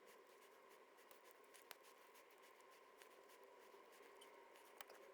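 Near silence: room tone with a faint steady hum and a couple of faint clicks.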